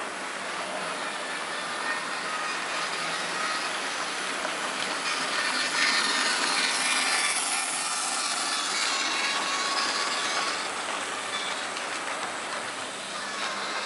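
Märklin H0 model of a DB class 44 steam locomotive running on metal Märklin M-track with its train of refrigerator wagons: a steady rattle and clatter of the little metal wheels on the track, loudest as the locomotive passes about six seconds in.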